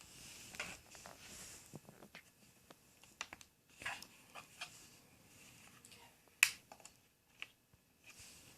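Scattered light clicks and taps from handling a laptop, with one sharper click about six and a half seconds in.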